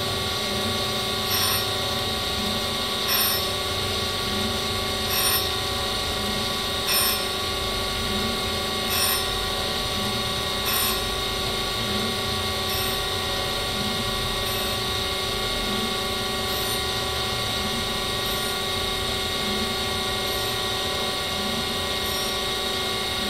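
Brown & Sharpe Micromaster 618 surface grinder running: a steady hum of its 2 HP motor and hydraulics, with a short swell of noise about every two seconds as the hydraulic table travels back and forth.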